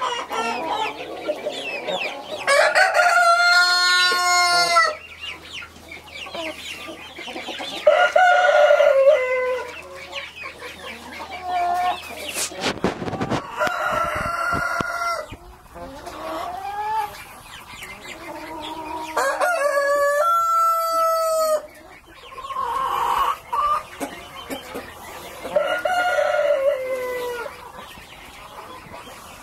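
Chickens in a coop: roosters crowing about five times, one long crow every few seconds, with hens clucking between the crows.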